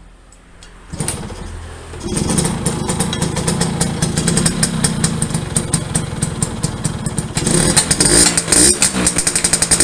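Yamaha V80 two-stroke single-cylinder engine kick-started in neutral, catching about two seconds in and running with a fast, even crackle, then revved in short throttle blips from about seven seconds in.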